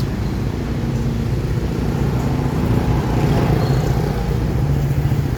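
Motor vehicle engine running, a low steady drone whose pitch shifts up and down a little.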